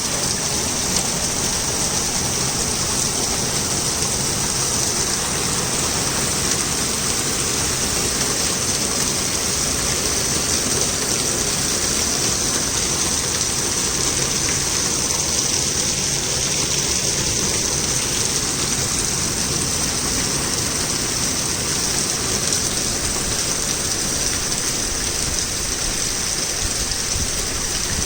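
Torrential rain pouring down, a dense, steady hiss with no breaks or thunderclaps.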